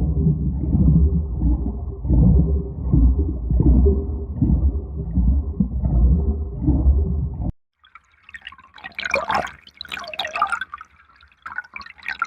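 Muffled underwater bubbling, a low rumble with irregular surges, cuts off abruptly about seven and a half seconds in. A different water sound follows: dripping and trickling water in uneven spurts.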